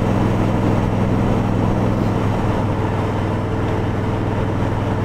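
Kawasaki Vulcan 1700 Voyager's V-twin engine running steadily under way, a constant low hum with a wash of wind and road noise over it.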